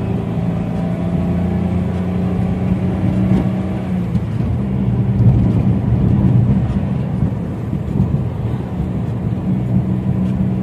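Car engine and road noise heard from inside the cabin of a moving car: a steady low hum under a rushing noise.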